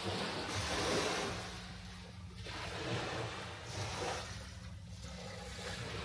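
Ocean waves washing onto a rocky shore, the rush of water swelling and falling in several surges, the loudest about a second in.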